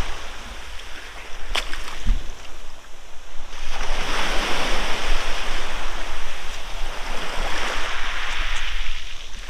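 Small sea waves breaking and washing over a shingle beach at the water's edge, swelling louder about three and a half seconds in. A single sharp click comes about a second and a half in.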